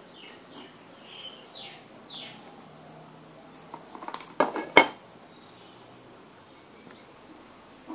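Plastic charger case and circuit board handled and set down on a wooden table: a few light clicks, then two sharper knocks about four and a half seconds in. A few faint high chirps in the first two seconds.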